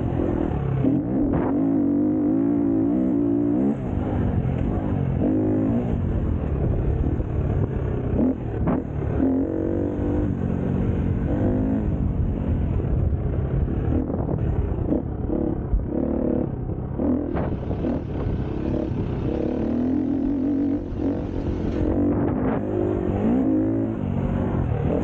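An engine running and revving, its pitch rising and falling over and over.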